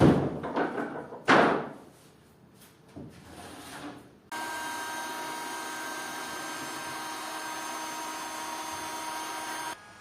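Loud knocks and scrapes of wood and tools, then an electric power tool's motor starts and runs at a steady whine for about five seconds before cutting off.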